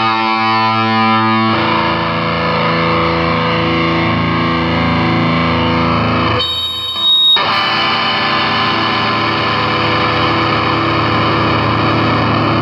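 Overdriven electric guitar (Stratocaster bridge pickup through a Korg Pandora PX4) played through an XTP8871 class-D mini amp into a 6x9" speaker: sustained chords left to ring, changing about a second and a half in. Around the middle there is a short break with a thin high whistle, then one chord rings out.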